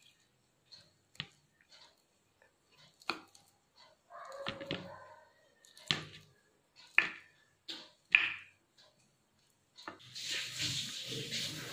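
Kitchen knife cutting soft steamed rice dumplings on a wooden chopping board: separate sharp knocks of the blade meeting the board, a second or more apart. Near the end a steady rushing noise begins.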